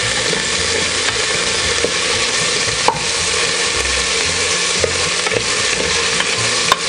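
Sliced red onion and garlic sizzling steadily in hot oil in a pressure cooker pot while being stirred with a wooden spatula. The spatula knocks against the pot a few times, most sharply about three seconds in and near the end.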